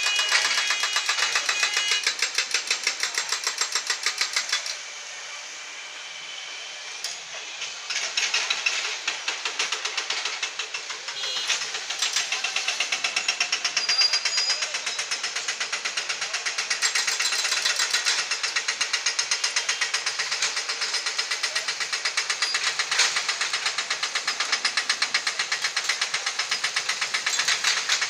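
Excavator-mounted hydraulic breaker hammering at the ground in a fast, steady run of sharp blows. It drops away for a few seconds about five seconds in, then starts again.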